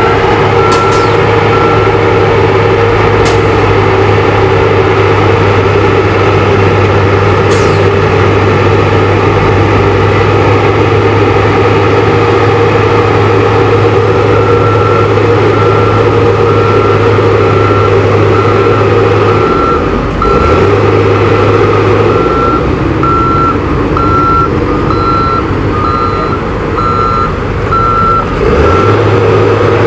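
Heavy truck diesel engine running loudly close by, from an asphalt distributor truck at work, its low hum shifting about two-thirds of the way through. A vehicle reversing alarm beeps in a steady on-off pattern at the start and again from about halfway until near the end, and a few short hisses of air come in the first several seconds.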